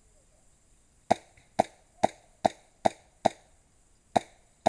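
Airsoft gun fired semi-automatically: six sharp pops with a short ring after each, about two a second, then after a pause two more near the end.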